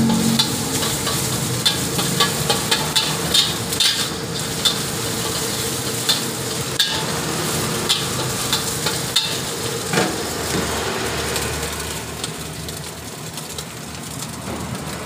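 Metal spatula scraping and clanking against a steel wok as rice and egg are stir-fried, over a steady sizzle from the hot pan. The strokes come thick and fast, then stop about ten seconds in, leaving mostly the sizzle.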